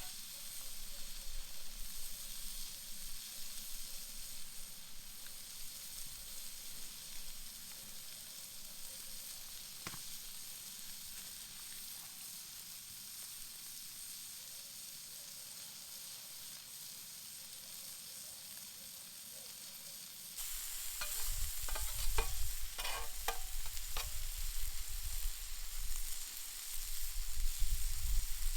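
Chicken sizzling steadily in a large Muurikka pan over a campfire. About two-thirds in the sizzle turns louder, with a few sharp clicks of a utensil against the pan as the food is stirred.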